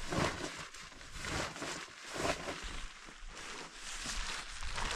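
Irregular rustling and crinkling of tent fabric and gear being handled, in uneven swells and short bursts, as a bivouac tent is packed up.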